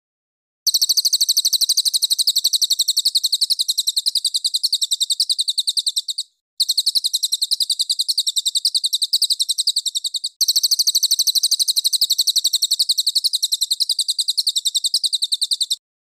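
Recorded songbird giving a high-pitched, very fast run of repeated notes in the rapid-fire 'tembakan' style, a master recording for training caged songbirds. It comes in three long runs, broken by brief gaps about six and ten seconds in.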